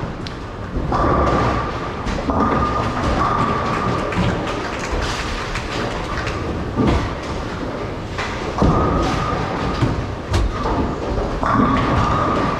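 Bowling center noise: bowling balls rolling down the lanes with a low rumble, a high steady tone that comes and goes, and a few sharp knocks of balls striking pins in the second half.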